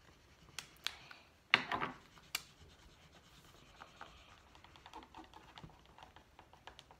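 Felt-tip markers scratching and rubbing on paper as two people colour. A few sharp clicks come in the first couple of seconds, the loudest about a second and a half in.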